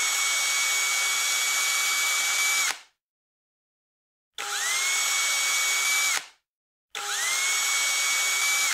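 Cordless 18-volt drill boring holes through stacked white plastic cutting-board mounts, in three runs of a few seconds each. Each run starts with a quickly rising whine as the motor spins up, then holds a steady pitch while the bit cuts.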